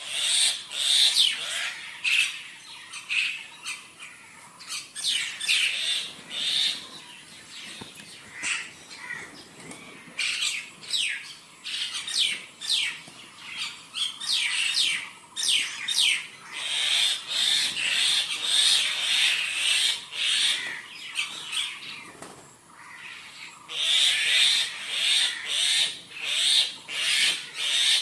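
Several birds chirping and calling together, a busy chorus of short, sharp notes that mostly sweep downward in pitch, swelling louder in stretches and easing between them.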